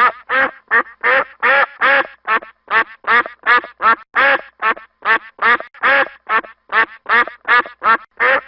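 Duck quacking in a long, even run of short calls, about two and a half a second.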